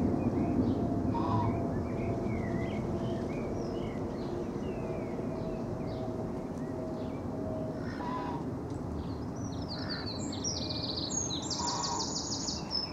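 Jet engines of a Boeing 777-200LR high overhead, a steady distant rumble that eases a little after the first second or two. Birds call over it: scattered short calls and chirps, then a fast high twittering near the end.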